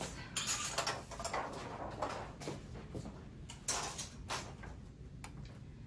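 Clothes hangers knocking and sliding on a metal clothing rail as garments are lifted off it, a string of separate clicks and short scrapes.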